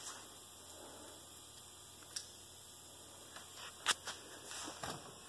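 Low steady hum with a few short sharp clicks, the loudest about four seconds in.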